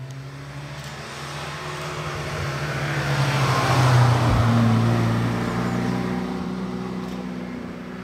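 Classic rally car's engine running at a fairly steady pitch as the car approaches and passes by, loudest about four seconds in, then fading away.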